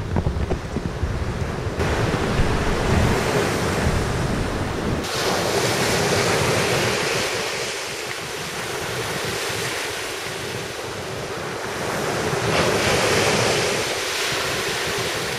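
Ocean surf breaking and washing up a sandy beach, swelling twice as waves come in, with wind rumbling on the microphone in the first few seconds.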